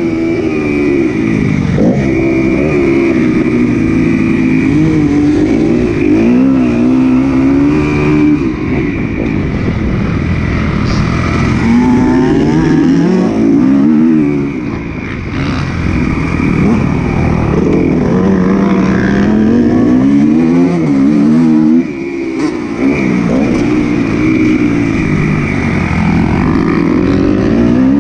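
Motocross motorcycles racing, several engines at once climbing and dropping in pitch over and over as they rev hard and shift.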